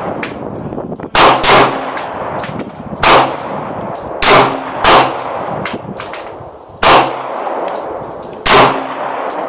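Glock 19 9mm pistol fired shot after shot: about seven sharp, loud shots at an uneven pace, some half a second apart, others nearly two seconds apart, each with a brief ringing echo.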